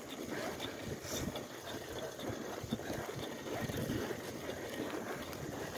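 Bicycle riding along an asphalt path on nearly flat tires: a steady tire-and-frame rumble with irregular low bumps, and wind on the microphone.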